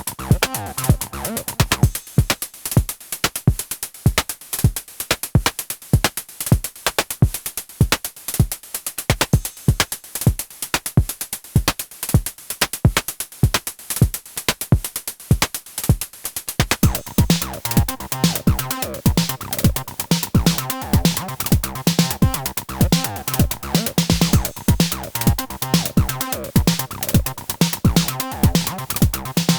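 Hardware electronic acid-techno jam at 128 bpm from a Moog DFAM, Behringer CAT and Elektron Syntakt synthesizers: a steady drum-machine beat runs stripped back, then about halfway through a synth bass line and higher synth tones come back in over it.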